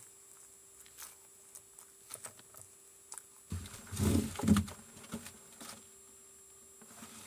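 Leopard tortoise biting and crunching chopped raw vegetables, heard as scattered crisp clicks. About halfway through comes a louder spell of rustling and knocks.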